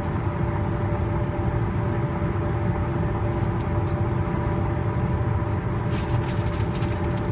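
Tyre and road noise of a car at highway speed on an interstate: a steady rumble with a constant hum of a few fixed tones, and a few faint crackles near the end.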